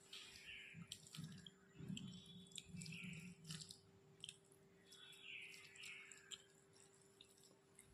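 Faint wet chewing and mouth sounds of someone eating rice and fish curry, with irregular soft clicks and smacks.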